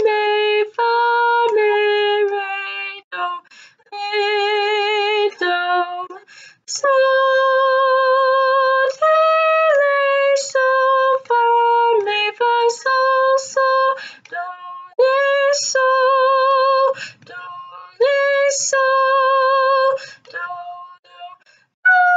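A woman singing an unaccompanied melody in solfège syllables, stepping up and down between held notes, some with a slight vibrato, with short breaks between phrases.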